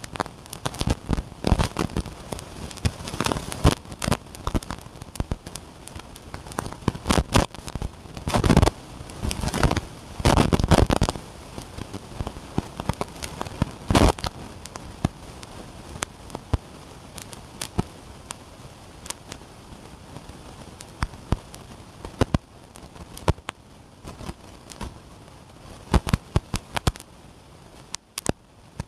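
Cardboard box and its plastic packing being opened and handled: irregular crackling, rustling and sharp clicks, busiest in the first fifteen seconds and sparser afterwards.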